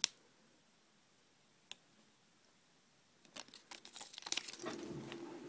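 Foil wrapper of a chocolate surprise egg crinkling and tearing as it is peeled off by hand, starting a little past halfway. Before that there is a single sharp click at the start and a faint tick, with little else.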